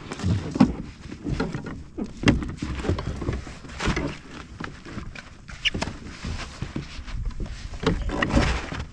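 A halibut and a landing net being worked on a kayak: irregular knocks, thumps and rattles as the fish, the net's frame and the gear hit the kayak's hull.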